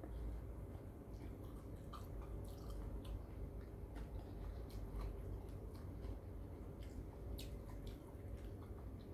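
Eating a soupy salad of unripe durian: a metal spoon clicking and scraping in the bowl through the wet dressing, with scattered small clicks and wet chewing sounds, over a low steady hum.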